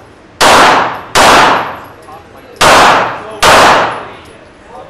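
Four handgun shots fired as two pairs, the shots in each pair under a second apart, each with a long echo off the walls of an indoor range.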